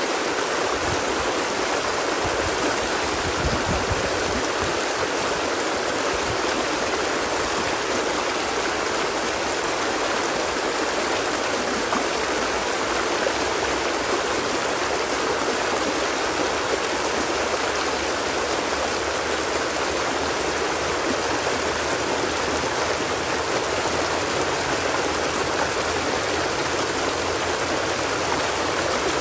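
Flowing stream water running with a steady, unbroken rushing sound.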